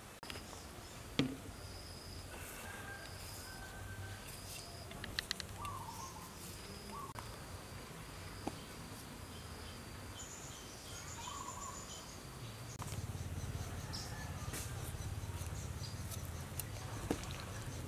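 Outdoor ambience of birds chirping with short, repeated high calls over insect noise, with a few light clicks. A low hum comes in about two-thirds of the way through.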